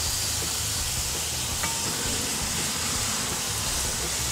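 Steady sizzling hiss of bacon-wrapped tater tots cooking on the grill grate while a honey and maple syrup glaze is brushed over them.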